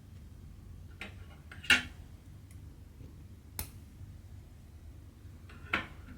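Needle and thread pulled through cross-stitch fabric: a few short swishes, the loudest a little under two seconds in, plus a sharp tick midway.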